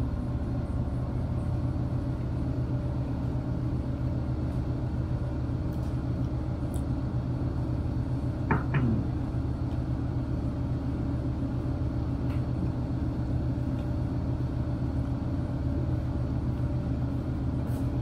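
A motor running steadily with a low, even rumble. A short clatter comes about eight and a half seconds in.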